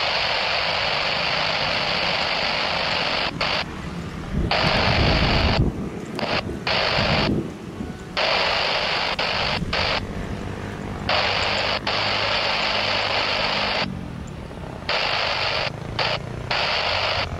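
Air-band radio static hiss, the squelch opening and cutting off abruptly again and again, over a low rumble.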